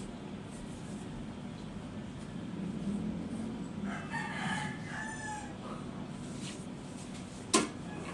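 A pitched animal call, about a second and a half long, starting about four seconds in over a low steady hum. A single sharp click near the end is the loudest sound.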